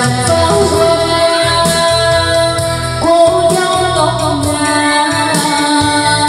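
A woman singing a slow Vietnamese song into a wireless microphone over a karaoke backing track, both played through a portable karaoke speaker, with long held notes.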